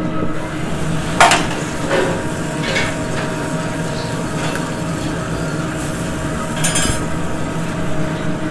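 Restaurant kitchen clatter over a steady hum: chicken frying in a skillet on a gas range, with several clinks of metal pans and utensils, the sharpest about a second in, and a short rattle near the end.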